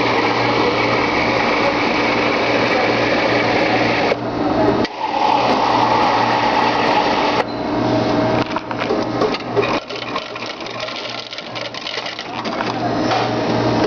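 Soda fountain drink dispenser running as a cup is filled, a steady mechanical hum with a busy clatter in the second half.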